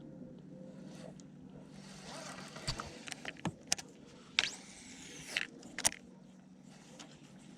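Fishing tackle being handled: a run of sharp clicks and rattles, then a whir of about a second that rises and falls in pitch, and one more click. A steady low hum runs underneath.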